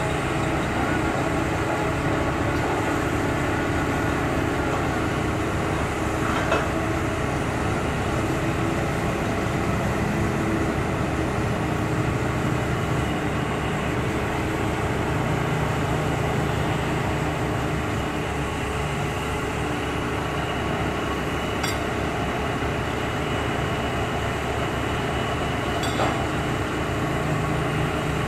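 Heavy diesel construction machinery running steadily, with a few brief clinks.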